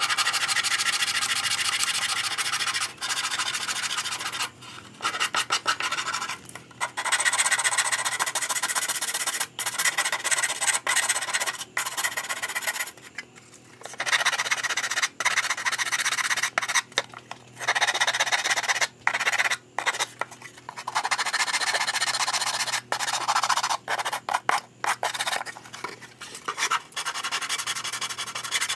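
Hand sanding of thin wooden panels with a sanding block: quick back-and-forth strokes giving a dry scratchy rasp, in runs of several seconds broken by short pauses.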